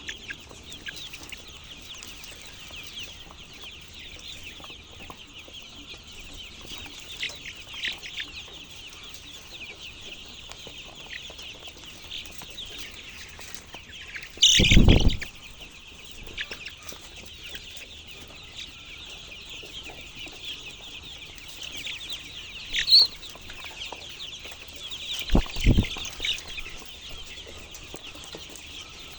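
A flock of chickens calling and clucking continuously, many voices overlapping. A loud thump comes about halfway through and two more near the end.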